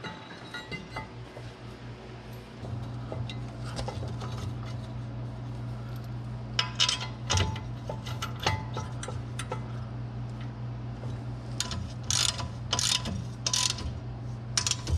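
Metal clinks as a steel brake caliper bracket is handled and seated against the steering knuckle, then a wrench clicking in short runs on a bracket bolt, most of them in the second half. A steady low hum sits underneath from about two seconds in.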